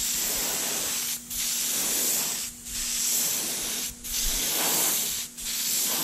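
Compressed-air gravity-feed spray gun spraying paint onto a brake caliper, laying on a third coat: a steady hiss in repeated passes, broken by brief pauses about every second and a half.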